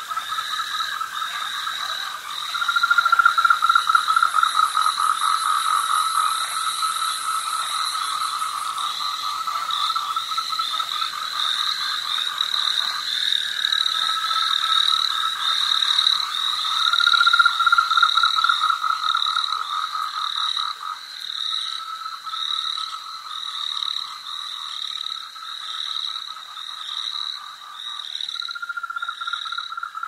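Chorus of frogs calling in rapid pulsed trills, several callers overlapping in bouts of a few seconds each, the loudest bouts a few seconds in and again just past the middle. A steady higher pulsed calling runs underneath, and a thin high buzz comes in briefly in the first third.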